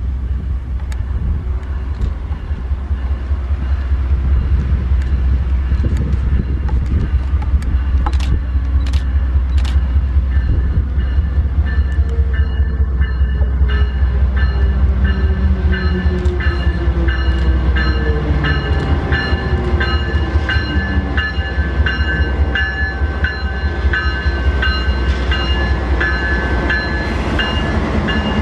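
Diesel-electric locomotive 1292 pulling Vale's passenger train slowly past. A deep engine rumble runs throughout, and its note falls as the locomotive goes by about halfway through. Then come regular clicks of wheels over rail joints and a steady high metallic squeal as the carriages roll past.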